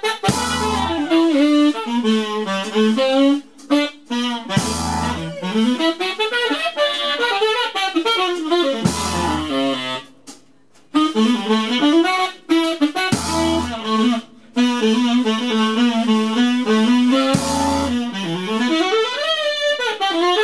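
Live band playing: a wavering lead melody over the band, with loud full-band accent hits about every four seconds. The music breaks off briefly a little before halfway.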